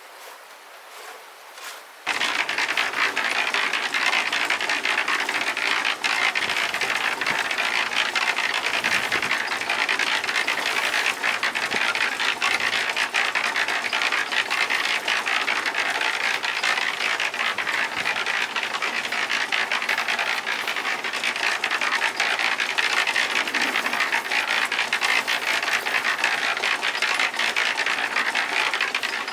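Steady, dense mechanical rattling that starts abruptly about two seconds in and runs on without letup.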